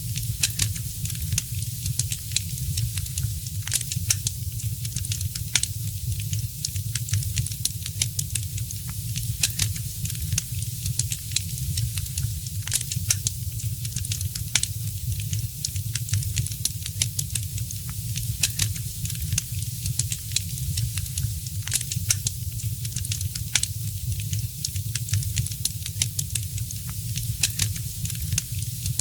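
Wood fire in a fireplace crackling: frequent irregular sharp pops and snaps over a steady hiss and a low rumble.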